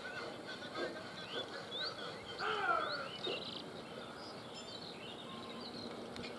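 Birds chirping over faint steady background noise: several short rising chirps, with a louder, longer call about two and a half seconds in.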